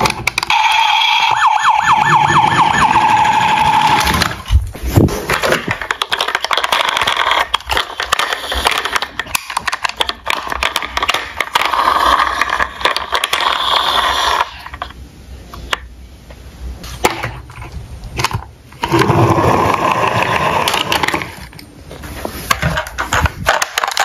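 Battery-powered toy police cars playing their electronic siren and sound effects through small speakers, with a quickly repeating rising siren wail about a second in. Hard plastic toy cars clatter and click as they are handled in a cardboard box.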